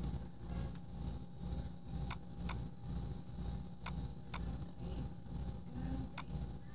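Computer mouse clicking, mostly in pairs about half a second apart as each line is picked and then the side to offset it to, over a low steady hum.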